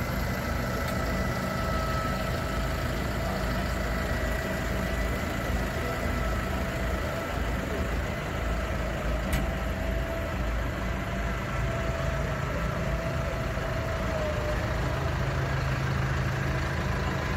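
Tractor diesel engines running close by: a steady idling rumble with a thin steady whine over it. Near the end the low rumble grows a little as a Claas loader tractor drives up.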